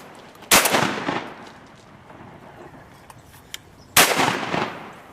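Two shotgun blasts from duck hunters, the first about half a second in and the second near the end, each followed by a long echo that dies away over about a second.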